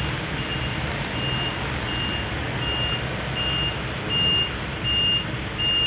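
Reversing alarm of road-paving machinery beeping steadily, about one high beep every 0.7 seconds, over the low rumble of idling engines in traffic.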